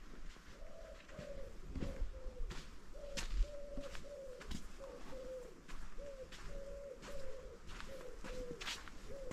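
A bird repeating a low, hollow, cooing call in a steady run of short notes, mostly in pairs with the second note a little lower. Irregular footsteps are heard underneath.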